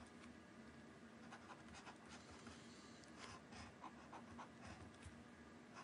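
Faint scratching and tapping of a stylus writing on a drawing tablet in short, irregular strokes, over a low steady hum.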